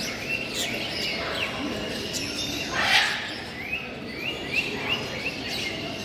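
A flock of caged budgerigars chirping and chattering in many short overlapping calls, with one louder, harsher call about three seconds in.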